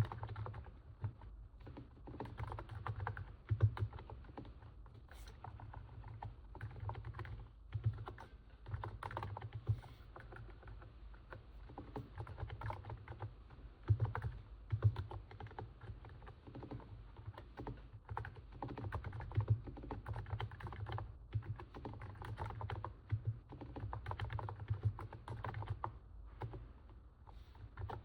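Continuous typing on a NiZ 68 Pro electro-capacitive keyboard: muffled keystrokes in quick irregular runs with short pauses, likened to the sound of stepping on snow.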